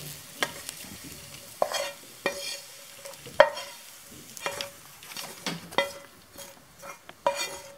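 Wooden spoon scraping fried cauliflower out of a metal frying pan onto a stainless steel platter: about a dozen irregular knocks and scrapes, each with a short metallic ring, the loudest about three and a half seconds in.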